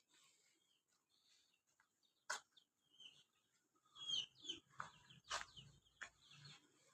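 Faint, scattered chicken clucks and short bird calls, a handful of brief sounds between about four and six and a half seconds in, after a single light click about two seconds in.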